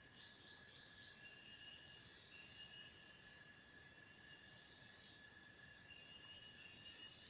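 Faint insect chorus: several steady high buzzing tones, one of them starting and stopping every second or so, over a quiet background hiss.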